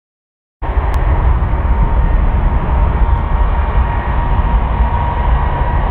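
Airbus A350's Rolls-Royce Trent XWB turbofan engines running as the airliner moves along the runway: a steady jet noise with a deep rumble and a held whine, cutting in suddenly about half a second in.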